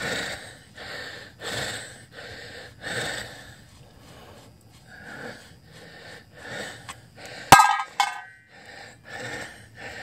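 A man's rapid, rhythmic breathing close to the microphone, short breaths in quick succession, as he works lug nuts off a wheel by hand. About seven and a half seconds in comes a sharp metallic clink with a brief ring, and a lighter clink follows just after.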